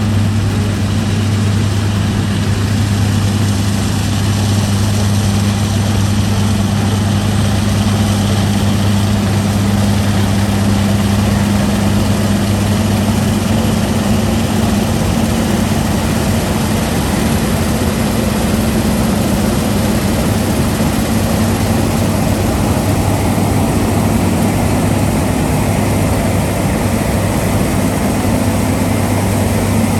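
Heavy farm-machinery diesel engine running at a constant speed, giving a steady deep hum with no changes in pitch.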